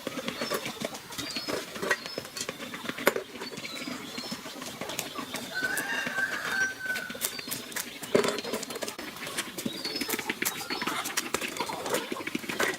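Irregular light clicks and knocks, with faint high bird chirps and one short whistle a little past the middle.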